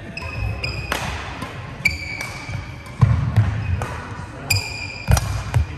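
Badminton rally: sharp racket hits on the shuttlecock about once a second, court shoes squeaking on the floor, and the thud of players' footwork.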